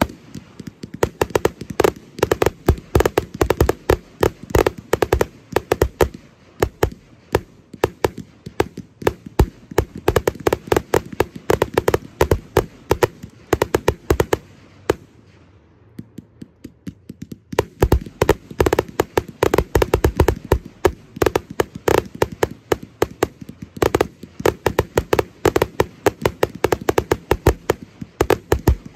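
Aerial fireworks display: a rapid barrage of bangs and cracks from shells and effects bursting, several a second. The firing eases to a short lull about halfway through, then picks up again just as densely.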